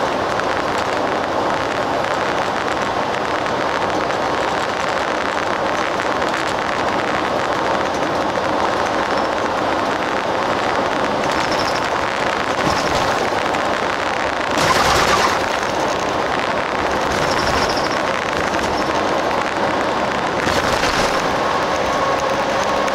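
Coach bus running at speed, heard from inside: a steady engine drone with tyre and road noise. There is a brief louder rush about two-thirds of the way through and a smaller one near the end.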